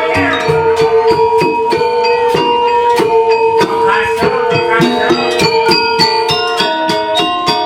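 Balinese gamelan playing dance accompaniment: fast, dense strikes on bronze metallophones and gongs, with one ringing note held through most of the passage.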